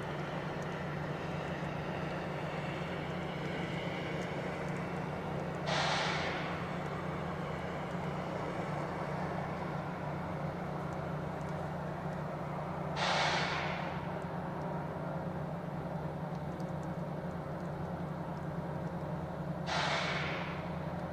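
Diesel locomotive idling with a steady low drone, while short hisses of air escape three times, about seven seconds apart.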